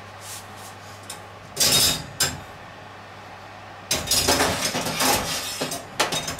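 Metal oven wire rack clanking and rattling against the oven's side rails as it is moved out of the rail where the baking tray is to go: a short clatter about a second and a half in, then continuous rattling from about four seconds in.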